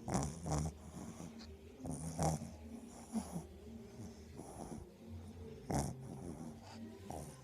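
Pug snoring in its sleep, a snore with each breath, repeating roughly every one to two seconds.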